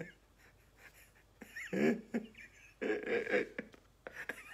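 A man laughing in two short outbursts, about a second and a half in and again around three seconds in.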